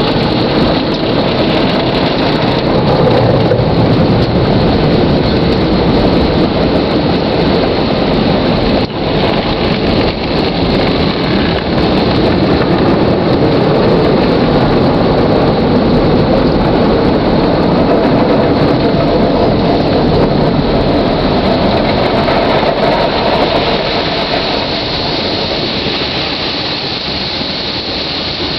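Automatic car wash heard from inside the car: water spray and wash equipment beating on the windshield and body, a loud, steady rush.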